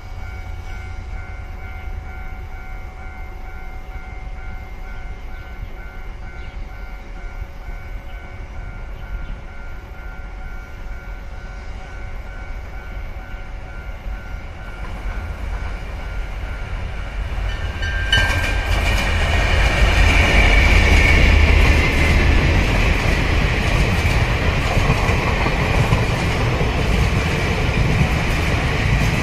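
Freight train hauled by diesel locomotive R157 approaching with a building rumble. About two-thirds of the way in the locomotive's horn sounds. The train then passes close, with loaded flatcars rumbling and clattering over the rails.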